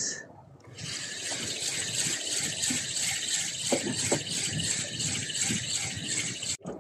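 Fishing reel giving a fast, even clicking rattle for about six seconds, stopping abruptly near the end.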